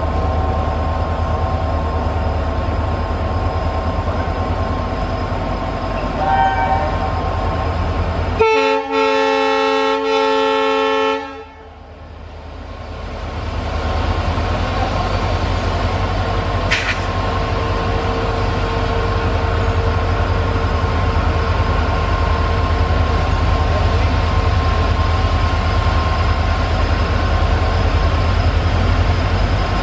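EMD diesel freight locomotives, a WDG4D leading two WDG4s, running under power with a steady low engine rumble and a high turbocharger whine, the EMD "jet sound". About six seconds in the horn gives a short toot, then a chord horn blast lasting about three seconds.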